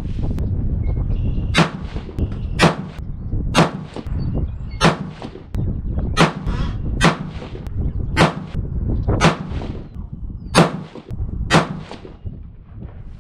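Ten rifle shots from a 224 Valkyrie bolt-action rifle, about one a second, each followed by a fainter second crack. They are the rounds of a 10-shot load-development ladder, each charge of Reloader 17 powder slightly heavier than the last. A steady low wind rumble runs underneath.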